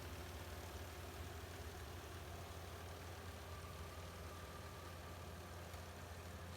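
Rice harvesting machine's engine running steadily, a low, even drone.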